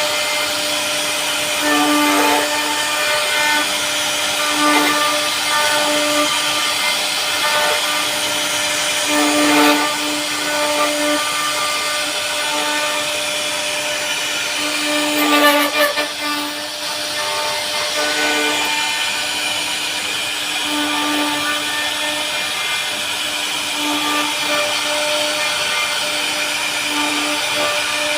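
CNC router spindle running while it carves wood, a steady whine that swells and eases every few seconds as the cut changes. About fifteen seconds in there is a brief louder rasp.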